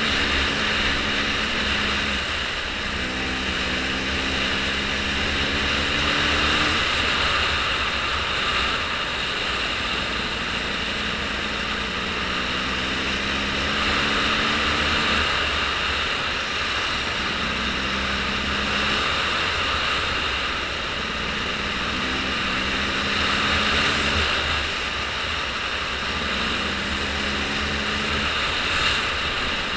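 A running vehicle engine under a steady rushing noise of wind or travel. The engine's tone comes and goes every few seconds.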